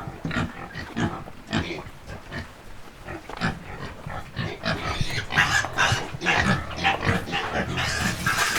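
Pigs at feeding time making many short, irregular grunts, growing louder and busier about halfway through: hungry sows calling for food.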